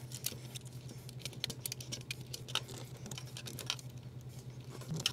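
Light, irregular clicks and scrapes of a small screwdriver working the terminal screws of a plastic System Sensor two-wire smoke detector base as wires are fastened, over a steady low hum.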